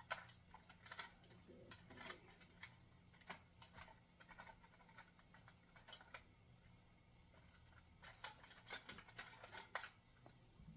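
Faint, irregular clicks and light taps from hands working at a desk, bunched near the start and again near the end, over a low steady hum.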